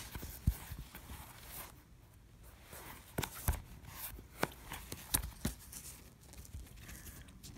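Handling noise: rustling of a fabric mermaid tail being moved about, with scattered soft knocks and clicks.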